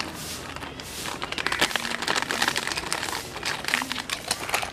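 Dog chewing a hard round biscuit: rapid, irregular crunching and cracking.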